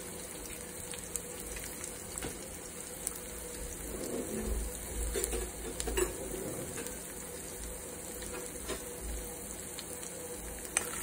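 Crushed garlic cloves and asafoetida frying in hot oil in a steel kadhai, sizzling gently with scattered small pops as the garlic browns for the tempering.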